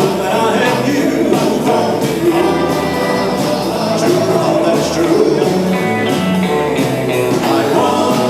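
Live band playing fifties-style rock and roll, with a singer over drums and guitars.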